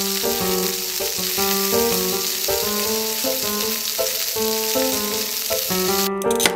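A steady frying sizzle sound effect over background music. The sizzle stops about six seconds in and is followed by a sharp click.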